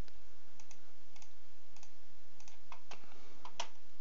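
Computer mouse clicking: a string of short, irregular clicks, several in quick press-and-release pairs, as faces of a CAD model are picked one after another.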